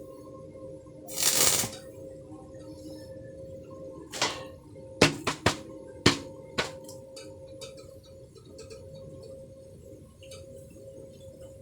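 Sharp clinks and knocks of metal being handled, about five of them in quick succession, after a short burst of hissing noise about a second in, all over a steady hum.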